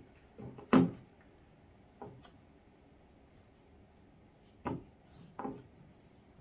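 A wooden stick scraping and digging into the pressed powder of an eyeshadow palette, breaking it up: a handful of short scratches and taps, the loudest just under a second in.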